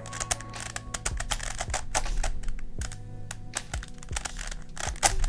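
Plastic pieces of an MF8 Starminx V2 twisty puzzle clicking and clattering as it is turned by hand. The faces turn only with effort.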